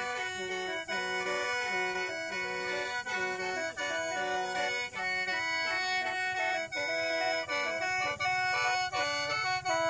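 Khaen, the Lao bamboo free-reed mouth organ, played solo: a quick, rhythmic melody over steady drone notes.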